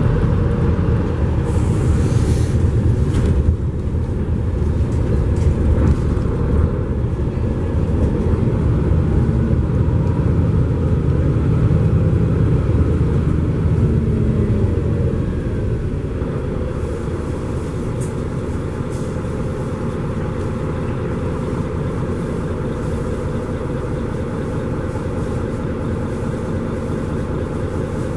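Mercedes-Benz Conecto G articulated city bus under way, heard from inside the passenger cabin: a steady engine drone and road rumble. A brief hiss rises over it about two seconds in, and the drone is somewhat quieter in the second half.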